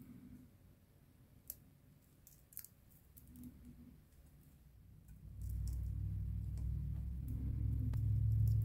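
Faint, scattered clicks of metal tweezers picking shed skin from a bearded dragon's scales. About five seconds in, a low steady hum comes in and grows louder, becoming the loudest sound.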